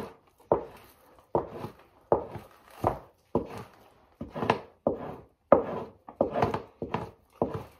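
Fleshing knife, held in both hands, scraping fat and membrane off a raccoon hide stretched over a PVC fleshing beam, in quick repeated strokes about two a second, each starting sharply and fading.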